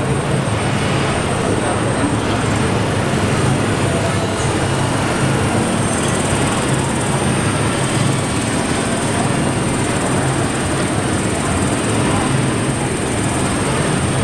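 Steady din of a crowded exhibition hall: an unbroken low engine-like drone with murmuring voices.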